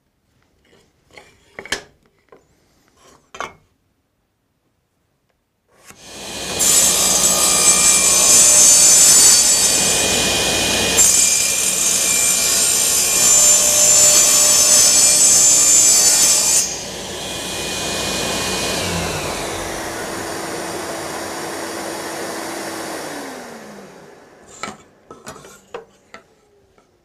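Electric power saw cutting a wooden box side to a rough 45-degree mitre: a few light handling clicks, then the saw starts about six seconds in and cuts for about ten seconds. After the cut it runs free with a steady hum, then falls in pitch and winds down near the end as it is switched off.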